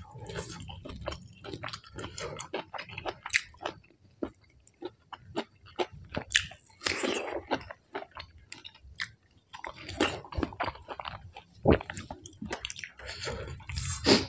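Close-miked chewing and biting with irregular crunches, a mouthful of rice noodles and raw vegetables being eaten.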